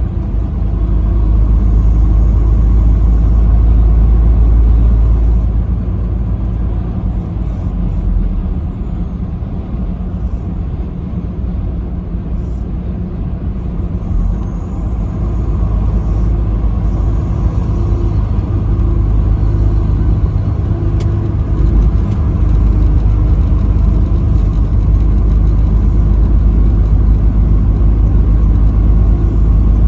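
Steady low rumble of a vehicle driving at highway speed: engine and road noise, a little quieter in the middle and building again in the second half.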